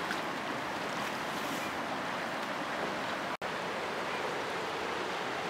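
Swift river water rushing steadily, broken off for an instant about three and a half seconds in.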